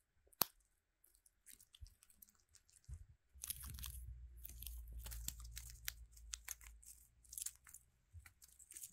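A Eurasian red squirrel gnawing a pine cone up close, with dense, irregular crunching as it bites off scales to get at the nuts. A single sharp click comes about half a second in, and the crunching starts about three and a half seconds in.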